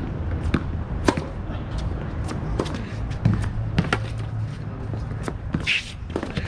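Tennis rally on a hard court: the ball struck by racquets and bouncing on the court, a string of sharp pops and thuds about every half second to second.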